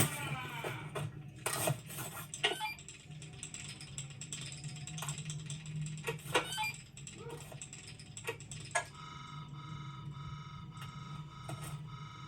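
Film sound effects: scattered mechanical clicks, clanks and ratcheting over a steady low hum. About nine seconds in, a steady, evenly pulsing electronic tone starts.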